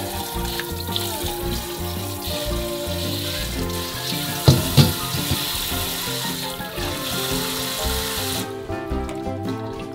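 Tap water running and splashing into a glass bowl of sliced salted cucumbers as they are rinsed by hand in a stainless steel sink, with two sharp knocks about halfway through. The splashing stops a little before the end, leaving background music.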